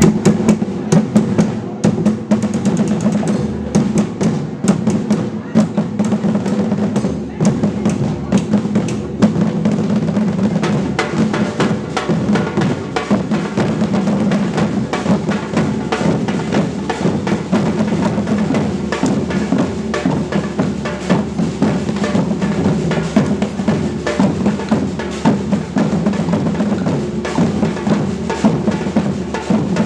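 A percussion group drumming together without a break: dense, rapid strokes over a steady deep drum tone.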